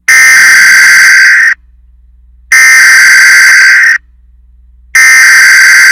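Emergency Alert System SAME header data tones: three loud, harsh buzzing bursts, each about a second and a half long, with a one-second pause between them.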